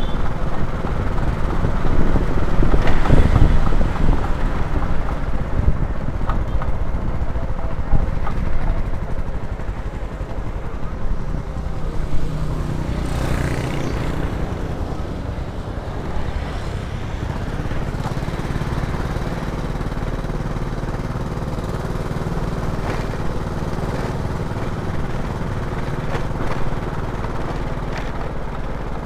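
Small motor scooter engine running steadily while riding along a street, with road and wind noise on the microphone.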